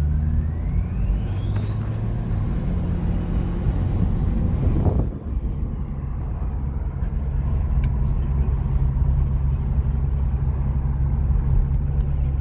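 Turbocharged BMW 335d inline-six diesel under a hard pull, its turbos whistling in a rising whine that climbs over about two seconds, holds high, then cuts off abruptly about five seconds in as the boost drops. The engine then settles into a steady low drone.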